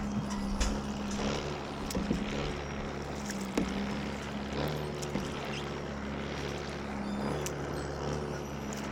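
Canoe paddling on a lake: scattered paddle knocks and water splashes over a steady motor hum that switches back and forth between two pitches.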